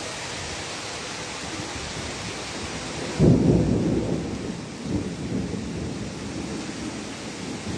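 Heavy downpour hissing steadily, with a sudden loud clap of thunder a little after three seconds in that rumbles on and fades over the next couple of seconds.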